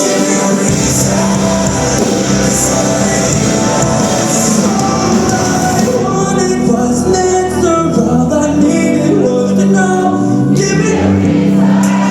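Rock song with a male lead vocal over a full band. About halfway through, the bright cymbal wash drops out and the singing carries on over sparser backing.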